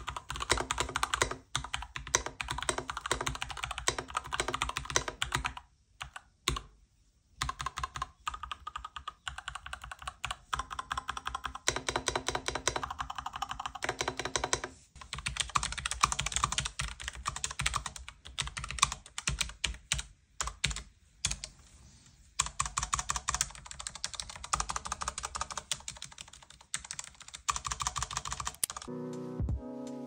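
Typing on compact mechanical keyboards, the Lightmode and the Logitech MX Mechanical Mini: a dense run of key clacks with two short breaks where the typing stops. Music comes in near the end.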